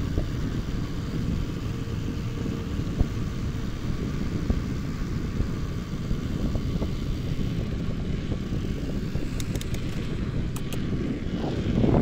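Steady low rumble of wind buffeting the microphone and tyres rolling on asphalt while riding along a road, growing louder near the end.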